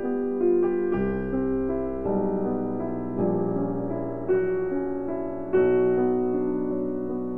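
Piano music playing from a vinyl record on a Lenco B52 idler-drive turntable, with notes struck about once a second and left to ring.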